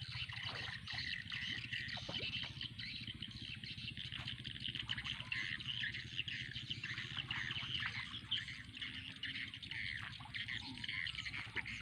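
Many short, high chirping calls from small animals, overlapping continuously, over a steady low hum.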